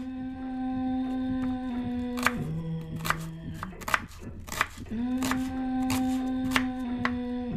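Slow background music of long held notes: a steady low note held for about two and a half seconds steps down to a lower one, and the phrase starts again about five seconds in. Sharp short taps sound over it every second or so.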